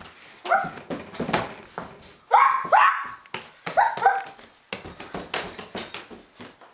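A person imitating a dog with short yips and barks that fall in pitch, in several groups. Knocks and scuffs of hands and knees on a hardwood floor run among them and take over in the second half.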